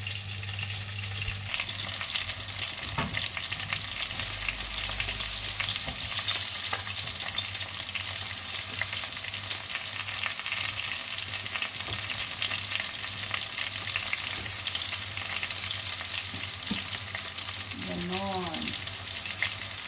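Eggplant slices frying in hot oil: a steady sizzle with many small crackling pops as the oil spatters off the moist eggplant.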